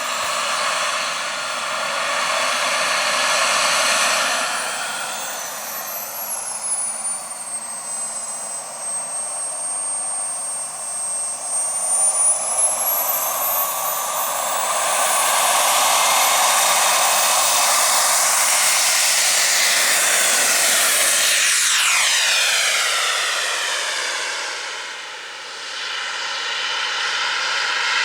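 Jetcat P100RX model jet turbine whining, its pitch climbing steeply about ten seconds in as it spools up. It holds a loud, steady whine, then the pitch drops sharply about three quarters of the way through as the jet passes by.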